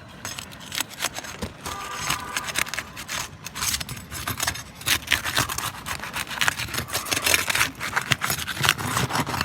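Old roof shingles being scraped and worked loose by hand: a run of irregular rubbing and scraping with short sharp cracks, busier in the second half.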